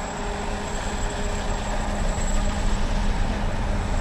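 Sikorsky-Boeing SB-1 Defiant compound coaxial helicopter in flight: a steady rush of rotor and engine noise that grows a little louder.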